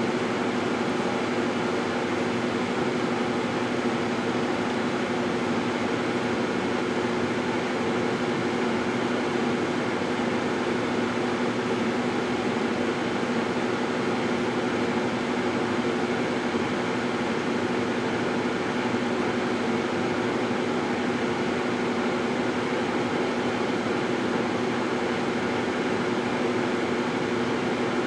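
GE Dual Wave microwave oven running: a steady electric hum with fan noise that holds even throughout.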